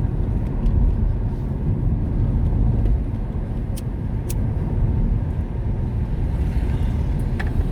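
Steady low road and engine rumble inside the cabin of a moving car, with two faint ticks about halfway through.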